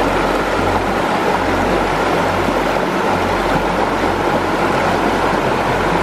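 Swift creek rushing over rocks, a loud, steady wash of white water.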